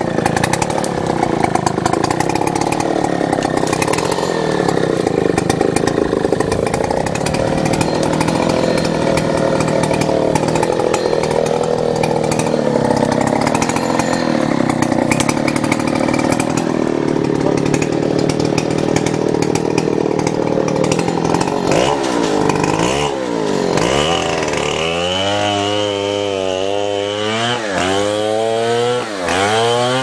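Two-stroke chainsaw running hard, cutting through fallen timber for about twenty seconds. Then, about twenty-two seconds in, the engine is revved up and down over and over, its pitch repeatedly dropping and climbing back.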